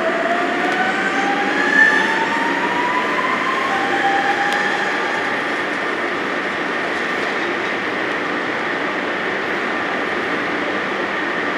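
Electric train pulling away, its traction motors whining in a tone that rises steadily in pitch over the first few seconds as it gathers speed, then steady rail running noise.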